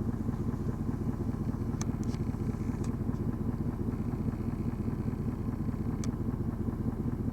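An engine idling steadily in a low, even rumble, with a few faint clicks.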